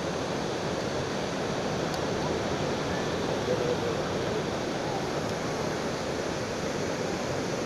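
Surf breaking and washing onto a sandy beach: a steady rushing noise of small waves.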